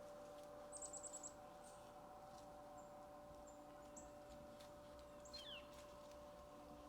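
Faint calls of small songbirds: a quick run of about seven high chirps about a second in, then scattered thin high notes and a short falling note, over a faint steady hum.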